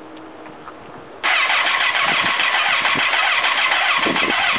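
Honda CBR954RR Fireblade's inline-four engine starting about a second in, then running loudly and steadily.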